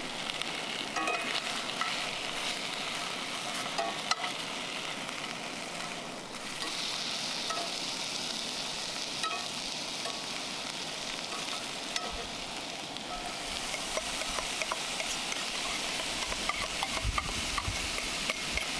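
Food sizzling in a frying pan, a steady hiss, with scattered sharp clicks of a utensil against the pan.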